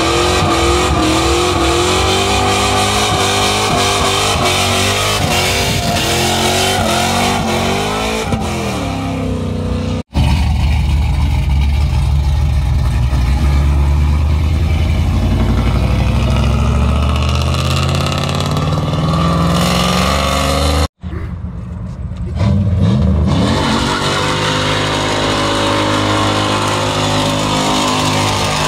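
Car engines revving hard and accelerating away, in three separate cuts. The third is a black fourth-generation Chevrolet Camaro that revs up a couple of seconds into its cut, with tyre smoke at its rear wheel.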